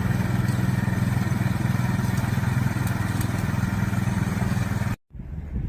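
An engine running steadily at an even pitch. It cuts off abruptly about five seconds in, and a quieter rumble of wind on the microphone follows.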